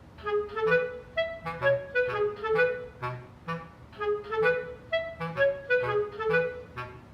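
Background music: a bouncy tune of short, clarinet-like woodwind notes over regular low bass notes, starting right at the beginning.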